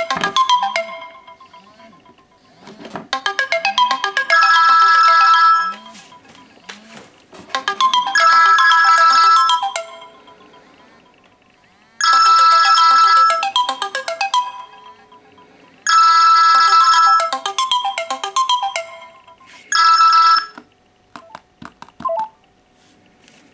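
A teXet B200 and a Samsung Galaxy S4 mini sounding at once, an incoming-call ringtone and an alarm together: a loud electronic melody that repeats about every four seconds. It stops about twenty seconds in, followed by a few clicks.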